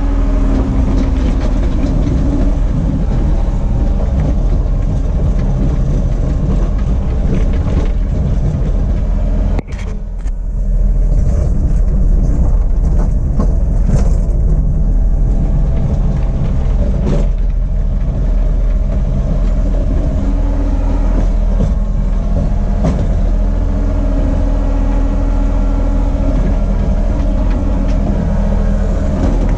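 Large engine idling steadily, with a single sharp knock about ten seconds in.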